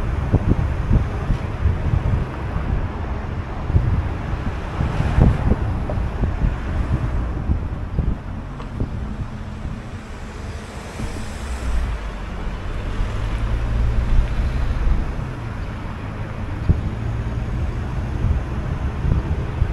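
Car driving through city streets: a steady low road and engine rumble with uneven buffeting of wind on the microphone.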